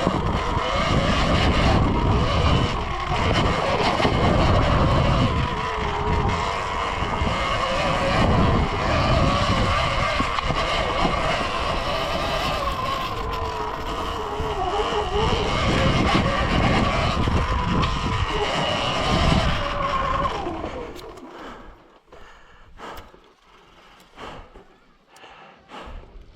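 Surron Ultra Bee electric dirt bike riding on a trail: a wavering electric-motor whine over wind rumble on the microphone. About twenty seconds in it slows and stops, leaving a quieter stretch with a few small clicks and knocks.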